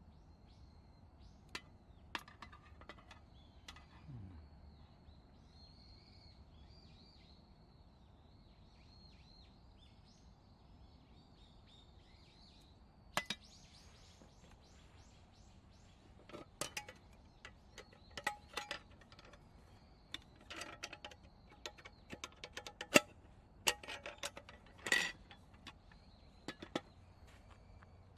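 A wire hanging handle clinking against an aluminium army-style mess tin as it is fitted and adjusted. The light metallic clicks and clinks come scattered and irregular, mostly in the second half, with one sharper strike near the end. Faint bird chirps run in the background through the first half.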